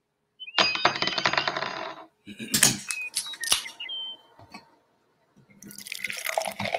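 Intro sound effects: a burst of metallic clinking and ringing for about a second and a half, then a few sharp clicks and knocks with short bird chirps, and a hissing rush near the end.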